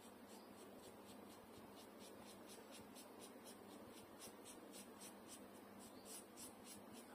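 Flat paintbrush scrubbing and dabbing paint onto paper in short, faint, scratchy strokes, about four a second.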